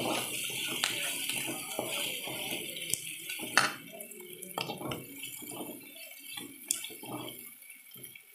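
Metal perforated spoon scraping and knocking against an aluminium kadai as sliced onions with green chillies and crushed ginger-garlic are stirred while frying, with a steady sizzling hiss under the scrapes. One sharper clank comes about three and a half seconds in.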